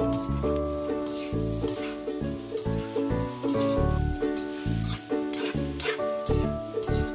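Metal spatula stirring and scraping fried rice around a wok, with a light sizzle and a few sharp scrapes against the pan, over background music with a steady bass line.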